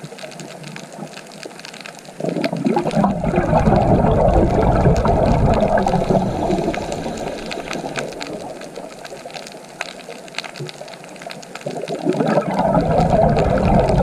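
Rushing water, a steady noise that swells loud about two seconds in, slowly eases, and surges again near the end.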